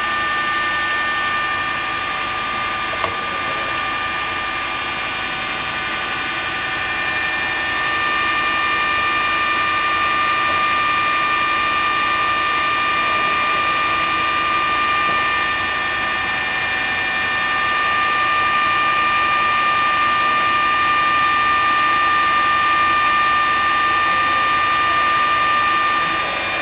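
Ikeda RM1300 radial arm drill press running under power, its 5 HP spindle motor and gear head giving a steady whine of several held tones over a hiss. A single click comes about three seconds in, and the sound grows a little louder a third of the way in and again past halfway.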